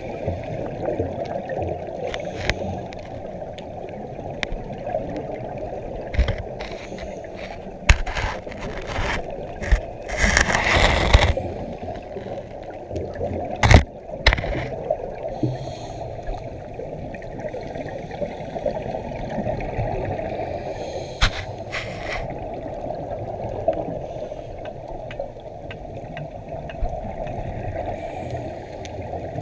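Muffled underwater sound through a GoPro's waterproof housing: a steady dull rush of water with scattered clicks and knocks, a louder rush of bubbles about ten seconds in, and a sharp knock a few seconds later.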